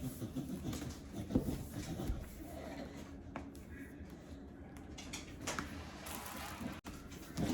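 Faint handling of the MacBook Air's packaging in a quiet room: a few soft knocks and a light rustle.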